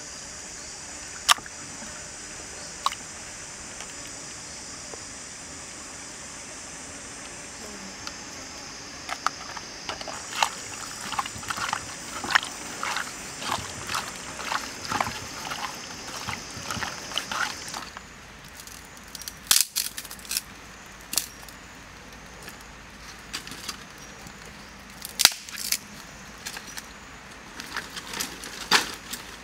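Raw pork pieces being squeezed and turned by hand in sauce in a clay pot: a dense run of short wet squelches for about eight seconds, over a steady high insect drone. Near the end, a few sharp separate clicks and knocks as sticks are handled at a campfire.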